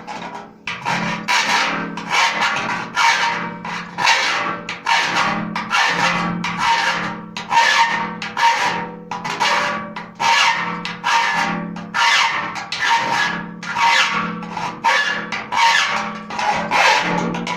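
Hand file rasping back and forth on the steel bed-side panel of a pickup, about one stroke a second, opening out a hole-saw cut, with the sheet metal ringing under each stroke.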